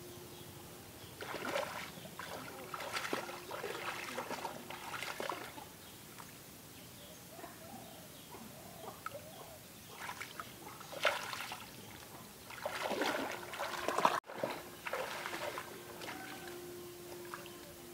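Shallow water splashing and sloshing in several irregular bursts as hands work at a submerged eel trap, then splashes of someone wading through ankle-deep water near the end.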